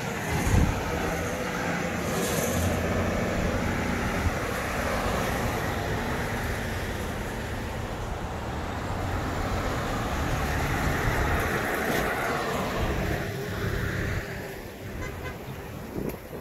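Street traffic at an intersection: vehicle engines running with a low steady hum and cars passing on the road, their tyre noise swelling around the middle and fading near the end. A short knock about half a second in.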